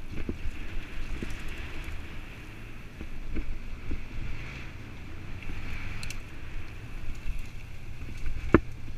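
Mountain bike riding fast down a dirt singletrack: steady wind rush over a helmet-mounted camera's microphone and tyre rumble, with scattered knocks and rattles of the bike over bumps, the loudest a sharp knock near the end.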